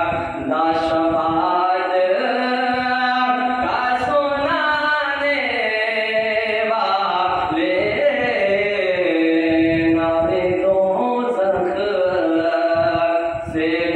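A young man sings a devotional naat solo into a microphone, with no instruments. His voice slides and ornaments the melody and holds long notes.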